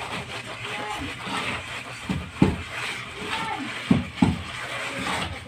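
Hand tool scraping and knocking against a rough concrete wall, with three sharp knocks: one about two and a half seconds in and two close together about four seconds in.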